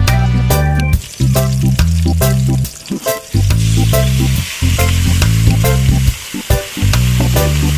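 Background music with a heavy, repeating bass line, loudest throughout, over food frying and sizzling in a pan as it is stirred; the sizzle grows louder from about halfway through.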